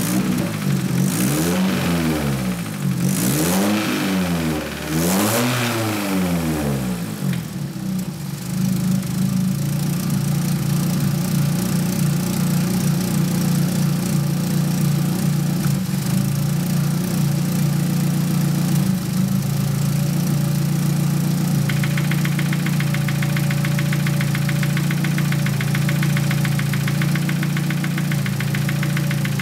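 Nissan SR20DET turbocharged inline-four engine blipped up and down three times, then settling to a steady idle. About two-thirds of the way in, a rapid, regular ticking knock from the cylinder head sets in and keeps going over the idle: the owner's intermittent head knock, which comes with a stumble as if the engine were on three cylinders, its cause unknown after the lifters were bled and the cams swapped.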